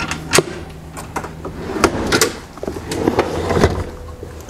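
Knocks, clicks and clatter of gear being handled and shut at a vehicle's storage drawers and boxes, with rustling between the knocks. A steady low hum sits under the first half.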